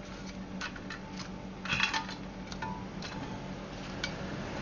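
Light clicks and clatter of scampi being set one by one on a bed of salt in a metal baking pan, with a louder cluster of clatter a little under two seconds in. A steady low hum runs underneath.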